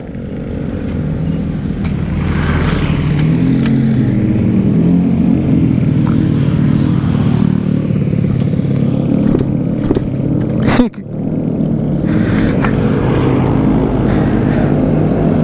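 Yamaha RX-King 135cc single-cylinder two-stroke engine running hard at speed, with a steady, loud engine note. About eleven seconds in, the note briefly breaks off and comes straight back.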